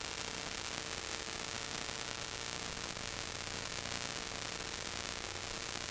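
Steady static hiss with a faint, constant hum underneath: the noise floor of a silent 8mm home movie's transfer, with no recorded sound of the scene.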